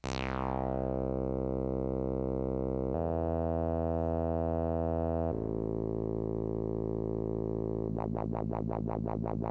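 Electronic synthesizer intro: a high falling sweep, then sustained droning chords that change twice. Near the end the sound turns into a fast even pulsing, about seven or eight pulses a second.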